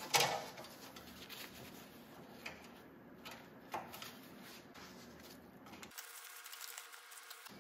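Faint handling noises: light clicks and rustling as gloved hands push a stripped wire into a plastic circuit breaker's terminal and work it in place, with the sharpest click just after the start.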